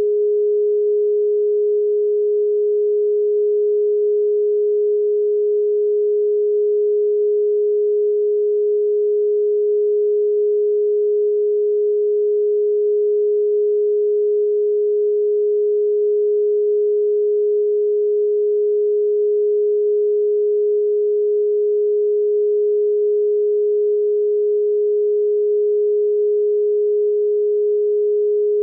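A single steady pure sine tone, mid-pitched at about 400 Hz, held unchanged: a solfeggio-frequency tone played for meditation listening.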